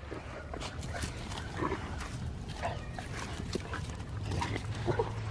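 A dog at play, making scattered short vocal noises, with occasional clicks and knocks over a steady low hum.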